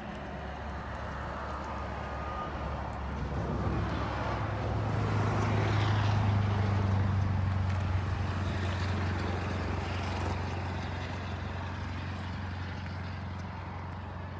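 A passing engine: a steady low drone that swells from about four seconds in, is loudest a few seconds later, then slowly fades.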